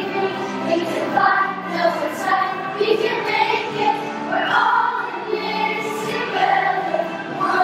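Children's choir singing, many young voices together in sustained, changing notes.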